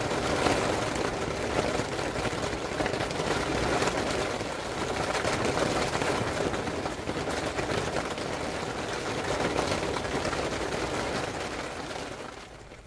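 Heavy rain shower falling on a tent's fabric awning, a dense, even patter of countless drops that dies away near the end.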